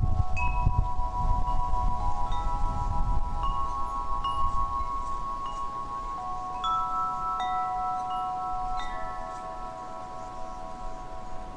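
Wind chimes ringing: scattered, irregular strikes of several metal tones, each ringing on and overlapping the next. A low rumble underneath fades away about halfway through.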